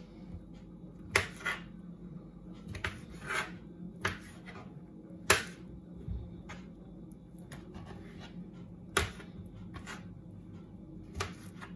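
Knife cutting frozen saba bananas on a plastic cutting board: irregular sharp clicks and taps as the blade meets the board, a second or more apart, the loudest about five seconds in. A steady low hum runs underneath.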